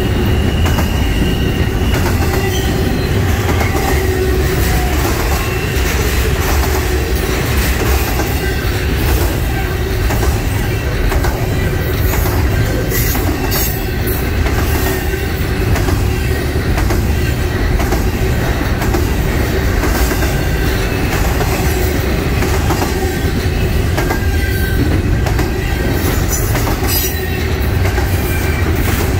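Double-stack intermodal container train rolling past: loud steady rumble of steel wheels on rail, with a rapid clatter of clicks as wheels cross rail joints and a faint wheel squeal at times.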